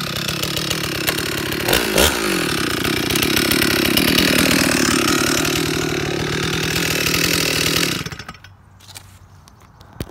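Ported Stihl MS440 two-stroke chainsaw revving out of the cut: one quick rev up and down about two seconds in, then held at high revs until it shuts off about two seconds before the end. A single sharp knock follows near the end.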